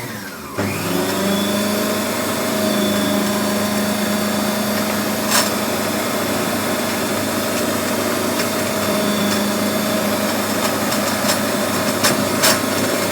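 Electric mixer motor running steadily, mixing tart dough of flour, butter, sugar and egg yolk until it comes together, with a few sharp clicks about five seconds in and twice near the end.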